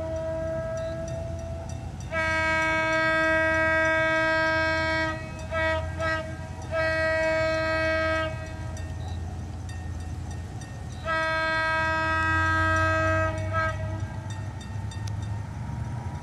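Locomotive horn sounding a long blast of about three seconds, then a few short toots, a shorter blast, and after a pause another long blast ending in a short toot. Under the horn runs the steady low rumble of the GT22CW's EMD two-stroke V12 diesel as the train draws near.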